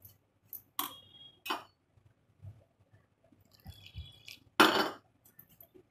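Metal spoon clinking and scraping against a stainless steel bowl while flour and curd are mixed into batter, with a few sharp ringing clinks. A thin stream of water is poured into the bowl around four seconds in, followed by a short louder splash or scrape.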